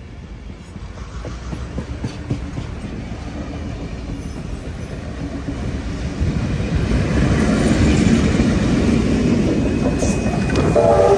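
Steam locomotive and its carriages running on the adjacent track, with wheels clattering over the rails. The sound grows steadily louder as the smoking locomotive draws level.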